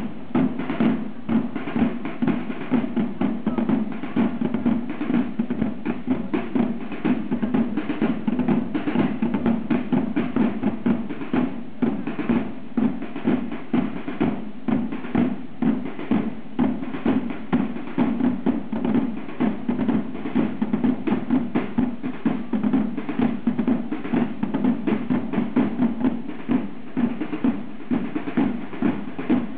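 A row of parade side drums playing together in a fast, steady marching rhythm with regular accented beats.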